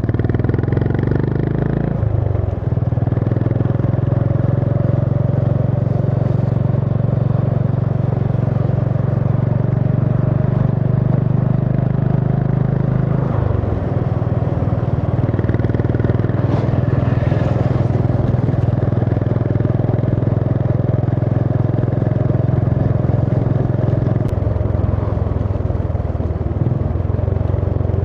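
Honda CB350 H'ness single-cylinder engine running steadily under way, heard from the rider's position. The engine note dips briefly about two seconds in and again about halfway through.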